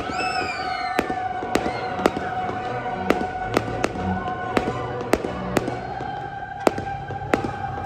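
Fireworks shells bursting in a quick string of sharp bangs, roughly two a second, with a falling whistle near the start.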